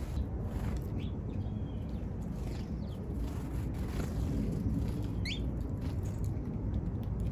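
Small birds giving a few short, high chirps, the clearest a pair about five seconds in, over a steady low rumble.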